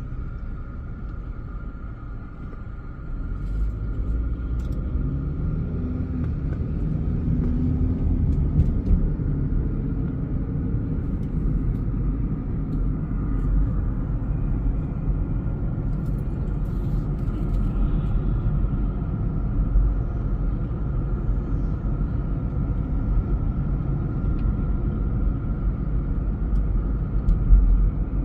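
Car driving: a steady low engine and road rumble that picks up about three seconds in, with a faint constant whine above it.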